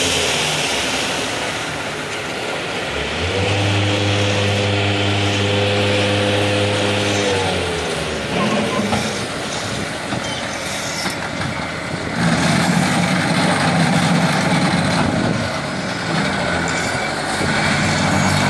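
Forklift engine running as the forklift drives and raises its bucket hopper. A steady pitched hum swells in about three seconds in and falls away after about four seconds. A rougher, noisier rumble takes over in the last third.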